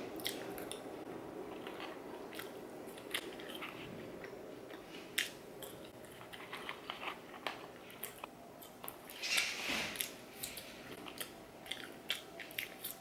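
Close-miked eating: a person biting and chewing food, with many small wet mouth clicks and a louder burst of noise about nine and a half seconds in.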